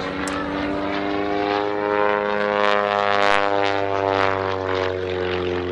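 Pitts Special aerobatic biplane's piston engine and propeller buzzing as it flies a display manoeuvre, the pitch rising and then sinking as it passes, loudest about three seconds in.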